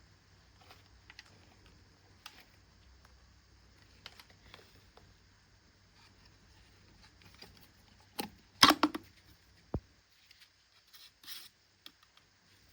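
Scattered light clicks and handling noises, with a short, louder clatter of several knocks a little past halfway and a few more clicks after it; no motor is running.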